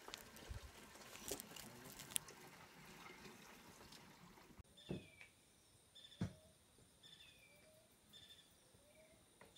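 Faint crinkling of dry, charred corn husks being peeled back by hand. After a cut, a bird gives a short falling call about once a second, with a lower rising note between calls, a faint steady high tone and two soft thumps.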